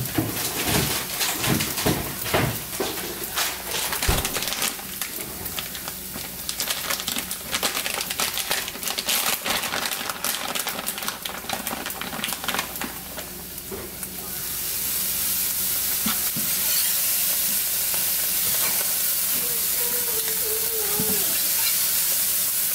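Scrambled eggs sizzling in a nonstick frying pan, with a utensil scraping and stirring them in quick, uneven strokes. About fourteen seconds in, the scraping stops and a steady, louder sizzle takes over.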